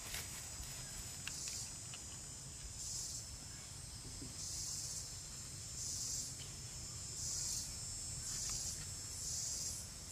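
Forest insects, cicadas or crickets, buzzing in a high-pitched chorus that swells in regular pulses about every second and a half, with a few faint taps from handling the bamboo tube.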